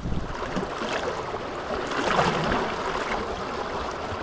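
Fast river water rushing and splashing over a small drop: a steady rushing noise that swells slightly about halfway through.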